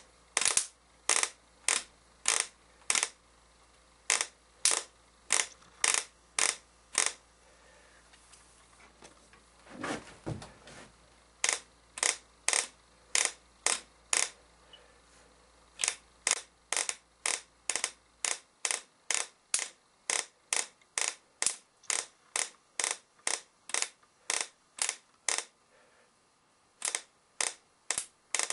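Rebuilt Chevy HEI distributor firing its spark as its shaft is turned by hand: a series of sharp snaps, two or three a second, with a pause of a few seconds about a third of the way in. The steady sparking shows the rebuilt ignition works.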